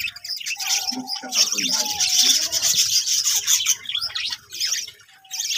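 Many small birds chirping and chattering rapidly in a dense, high-pitched chorus, with a few lower whistled notes in the first couple of seconds.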